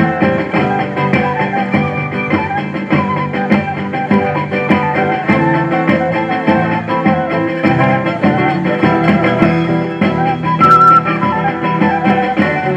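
Live Andean folk dance music: strummed guitars and a small plucked string instrument over a drum kit keeping a steady beat, with a flute carrying a wavering melody. A loud high held note sounds near the end.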